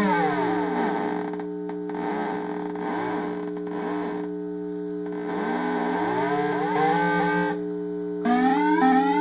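Circuit-bent Little Tikes toy tea kettle's sound chip putting out glitchy electronic tones: a steady droning hum under warbling pitches that swoop down and back up. Stepped, rising toy-melody notes return near the end.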